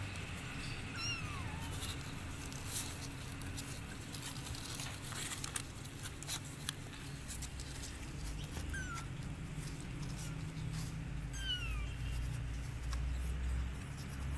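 Young kittens mewing a few times with short, high cries that fall in pitch, and small claws scratching and tapping on the cardboard floor of a box, over a low steady rumble.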